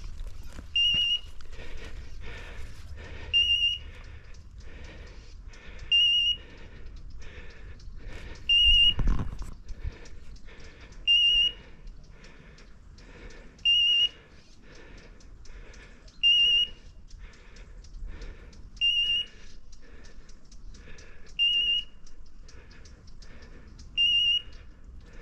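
Electronic beeper collar on a hunting dog giving a short, high beep about every two and a half seconds, with rustling steps through undergrowth between the beeps.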